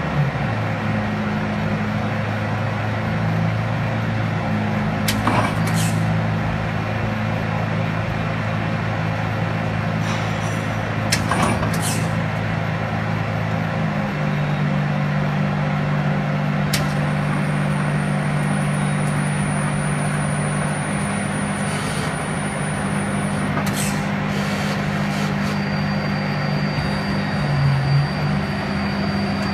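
Okuma 762S BB big-bore CNC turning center running: a steady machine hum made of several low tones, which shift in pitch about halfway through, with a few sharp clacks scattered through it.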